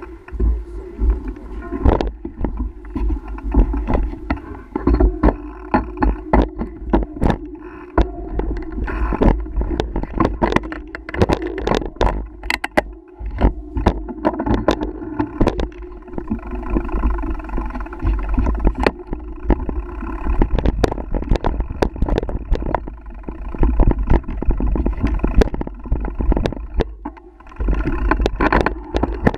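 Mountain bike ridden fast down a rough dirt singletrack: dense, irregular rattling and knocking of the bike and camera mount over roots and rocks, over a steady low rumble of wind on the action camera's microphone.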